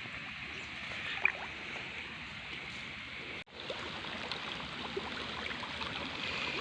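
Water running steadily, with a sharp click about a second in and a brief drop-out about three and a half seconds in.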